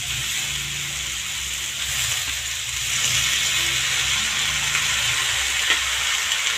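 Shredded beetroot and carrot sizzling in hot oil in a kadai as they are tipped in by hand, the sizzle growing louder about three seconds in. A low steady hum runs underneath.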